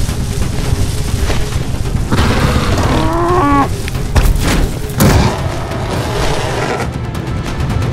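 A cow moos once, a drawn-out call about two seconds in, over a heavy low rumble. Two loud booming hits come about a second apart shortly after it.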